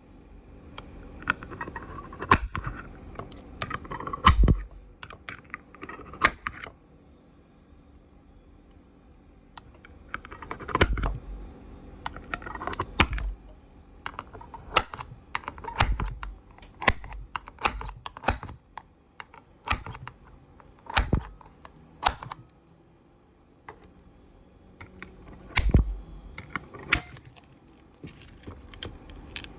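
Irregular sharp clicks and taps of small hard objects, coming in clusters with short quiet gaps, much like keys being pressed.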